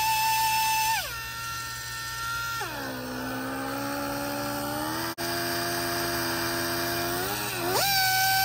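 Small right-angle grinder with an abrasive pad, its motor giving a high-pitched whine while grinding a Time-Sert thread insert flush with an aluminium engine block. The whine drops in pitch about a second in and again soon after, running lower and quieter for several seconds, then climbs back up near the end.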